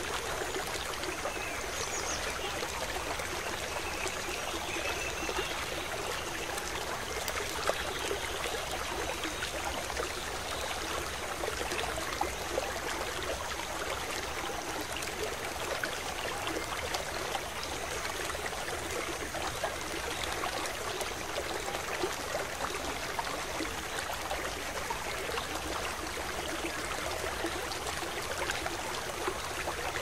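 Mountain river flowing: a steady rush of water, full of small splashes and trickles.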